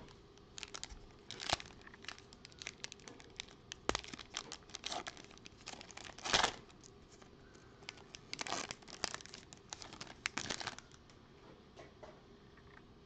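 Foil wrapper of a Panini Prizm football card pack being torn open and crinkled by hand, in a string of sharp crackles and rips. The loudest rips come about six seconds in and again around nine to ten seconds, and the crinkling stops a couple of seconds before the end.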